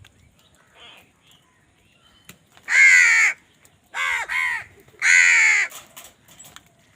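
A crow cawing: one harsh caw, a quick double caw, then another long caw.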